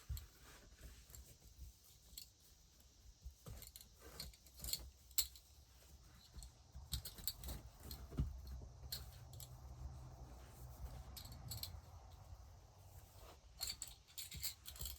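Faint, scattered clinks and clicks of a ring of small spoons being handled and threaded onto ribbon.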